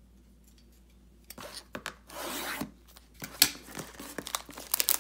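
Hands rubbing at and starting to tear the plastic wrapping of a trading-card hobby box, with scattered ticks and crinkles. It is quiet for the first second or so, and the handling gets busier toward the end.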